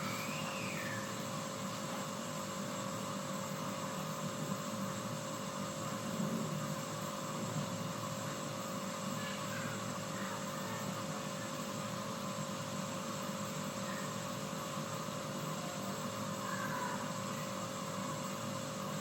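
Water being heated on a stove: a steady rushing hiss with a constant hum, and a few faint higher chirps now and then.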